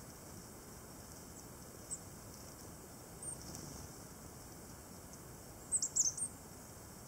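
Tits calling: short, thin, very high calls, one about two seconds in, another a second or so later, and a quick run of four or five near the end.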